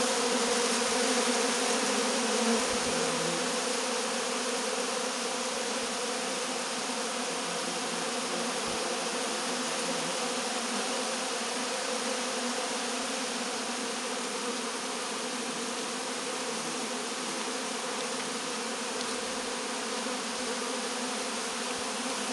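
Many honeybees buzzing in a steady hum as they swarm over a honey-smeared uncapping fork, licking it clean. The hum is a little louder in the first few seconds, then holds even.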